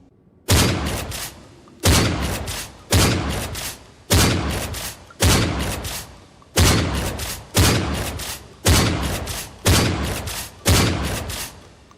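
Gunfire sound effects: about ten loud gunshots roughly a second apart, each followed by a long echoing decay.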